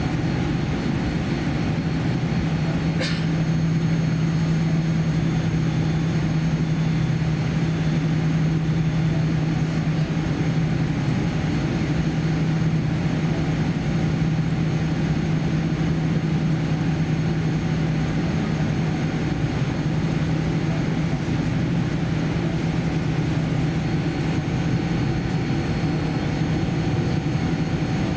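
Steady cabin noise inside a Boeing 787-10 taxiing at low speed: engines at idle and the cabin air system make an even rumble with a low steady hum. One short click about three seconds in.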